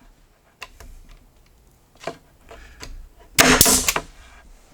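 An 18-gauge pneumatic brad nailer fires once, about three and a half seconds in, driving a half-inch headless pin into a quarter-inch wooden strip: a sharp bang with a short burst of air. A few light handling clicks come before it.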